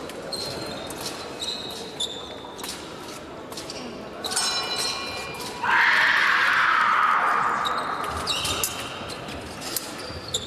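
Fencers' shoes squeaking and feet striking the piste during footwork in an épée bout, in a large echoing hall. About halfway through, a loud noisy sound starts suddenly and fades away over about two seconds.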